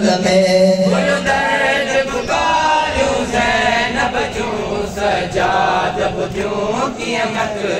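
Many men's voices chanting a Sindhi noha, a Muharram lament, together in unison, with a lead voice amplified through a microphone.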